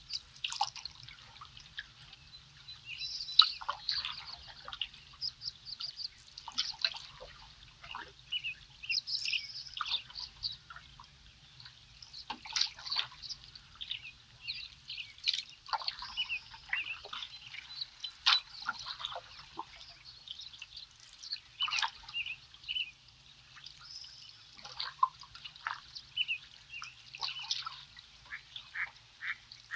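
Many songbirds singing and calling at once, a steady stream of short chirps and trills, with water dripping and trickling from the canoe's paddle strokes.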